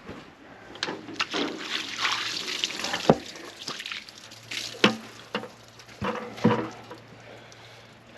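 Water splashed and poured from a container onto a freshly sawn honey locust slab, in irregular splashes with a few sharp knocks.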